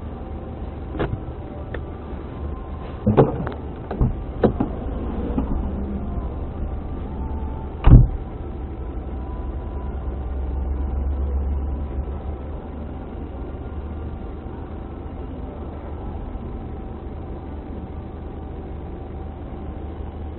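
Steady low rumble of a car heard from inside. A few clicks and knocks come in the first few seconds, and a loud thump about eight seconds in.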